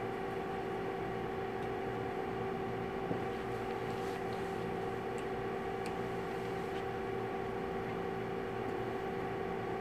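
Steady room hum carrying a constant tone, like a classroom's ventilation and equipment running, with a few faint ticks in the middle.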